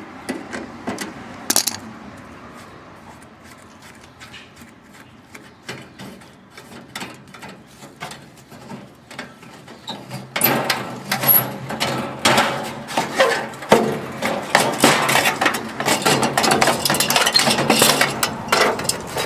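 Metal clinking and scraping as an aluminum-and-steel part is worked off a water heater: light scattered clicks at first, then dense, rapid clinking for the second half.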